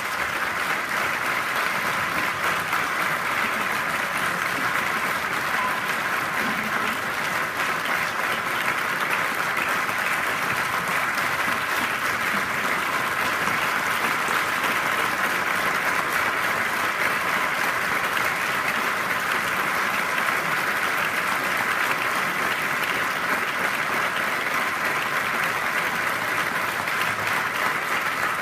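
Sustained applause from a large crowd of clapping hands in a courtroom, dense and steady throughout.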